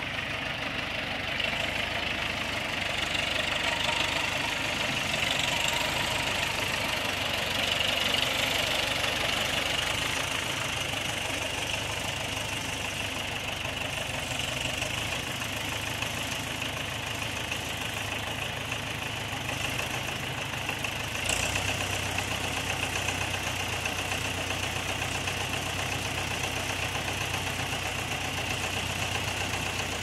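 Farm tractor engines idling steadily, with a Farmall tractor running close by. About 21 seconds in a deeper engine note comes up and holds.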